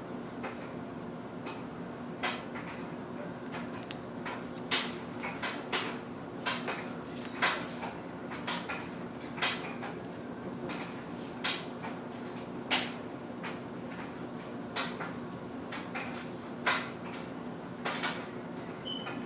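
Irregular short clicks and rustles of paper and craft tools being handled on a table, about one every second, over a steady low hum.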